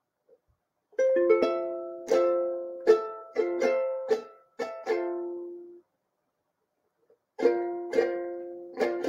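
Ukulele chords being strummed, starting about a second in, each strum ringing and fading. The playing stops for about a second and a half past the middle, then the strumming picks up again.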